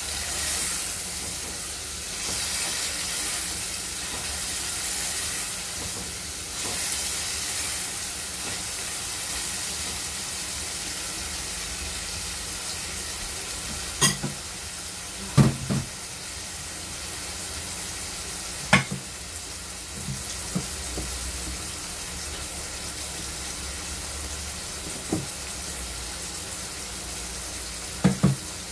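Seasoning of onions, bell peppers and tomatoes sizzling as it sautés in a pot, with a spoon stirring it in the first several seconds. Later a few short, sharp knocks.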